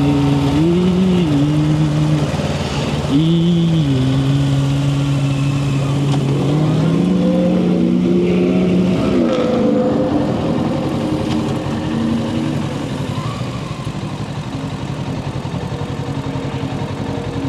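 Kawasaki Ninja 650's parallel-twin engine under way. It gives two short rev blips, then the revs climb slowly and fall away about nine seconds in, and the engine settles to a steadier, lower note.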